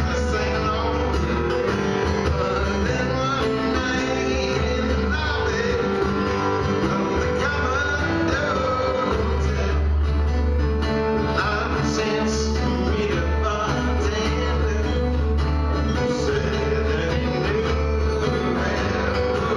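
Live acoustic guitar duo: two acoustic guitars strumming and picking a country-rock song, with vocals over them.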